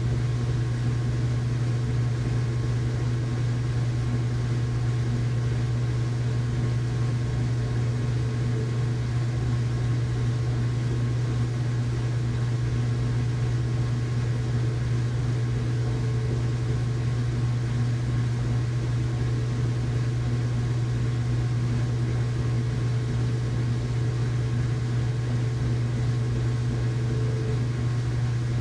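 Household washing machine running in its rinse cycle: a steady low motor hum with fainter steady tones above it and light hiss, unchanging throughout.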